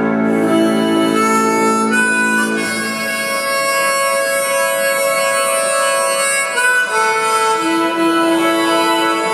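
Harmonica playing a slow melody of long held notes over sustained organ chords. The low organ chords drop out about three seconds in, leaving the harmonica mostly alone.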